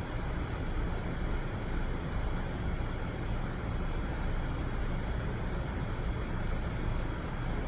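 Steady rushing background noise with a strong low rumble and no distinct events.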